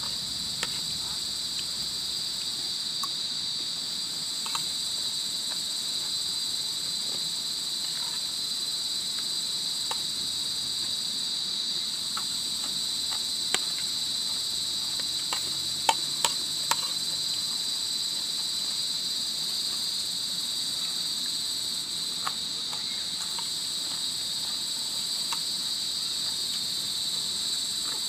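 Steady, high-pitched chirring of an insect chorus, with a few sharp clicks a little past halfway.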